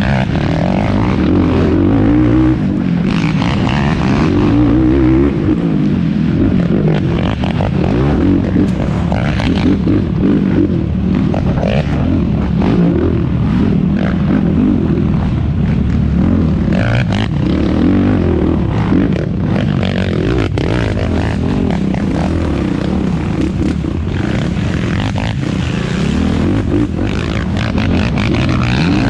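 Yamaha YFZ450R quad's single-cylinder four-stroke engine running hard under race load, its pitch rising and falling with the throttle. Frequent knocks and clatter cut through it.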